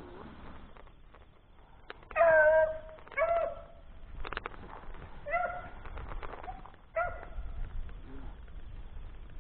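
Hunting hound barking on a rabbit's scent trail, the sign that the dog is running the track. There are four short barks, the first a couple of seconds in and the loudest.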